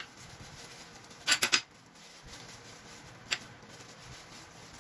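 Plastic-gloved hands handling onion pieces and a whole raw chicken in a glass bowl while stuffing it: a quick cluster of three sharp clicks about a second and a half in, and one more click later.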